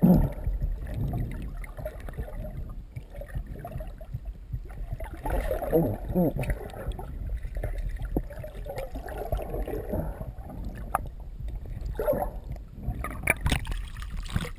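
Muffled underwater sound through a submerged GoPro HD Hero 2 in its waterproof housing: a steady low rumble with gurgling and bubbling water. Near the end come sharp splashes and drips as the camera breaks the surface.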